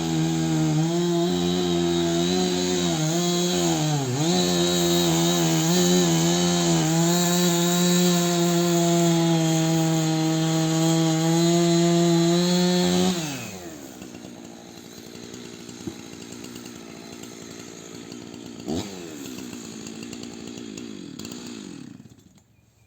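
Chainsaw running at full throttle while cutting a tree, dipping briefly in pitch about four seconds in. About thirteen seconds in it drops to a lower, quieter idle, with one quick throttle blip, and shuts off near the end.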